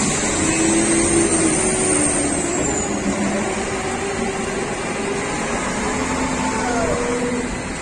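Steady din of heavy diesel machinery: a Vögele asphalt paver running as a tipper truck unloads asphalt into its hopper.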